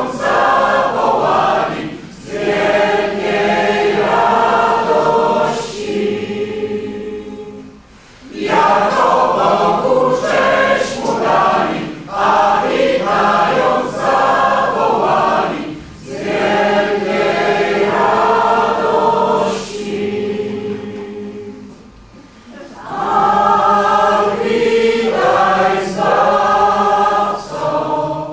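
Mixed parish choir, women's and men's voices together, singing a Polish Christmas carol in lines of about six to seven seconds, with short breaks for breath between the lines.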